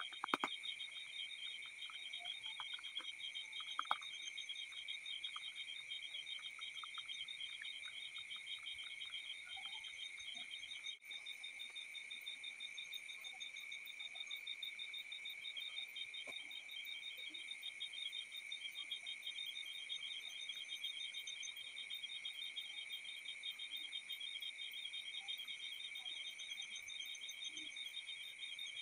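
Insects chirping in a steady background chorus: several overlapping high-pitched, rapidly pulsing trills that run on without a break. A few faint clicks come in the first few seconds.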